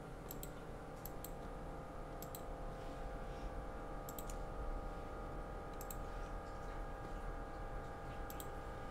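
Six computer mouse clicks, each a quick double tick, spaced a second or two apart as commands and edges are picked on screen. A steady hum of several tones runs underneath.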